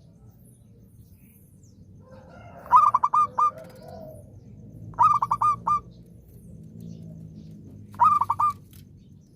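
Zebra dove (perkutut) cooing: three short phrases a couple of seconds apart, each a quick run of four or five clipped notes.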